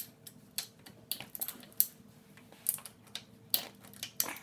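Irregular light metallic clicks and ticks from a hand tool loosening the 8 mm bolts on a Honda CRF80's engine side cover, the front sprocket cover, with one or two quick clusters of clicks.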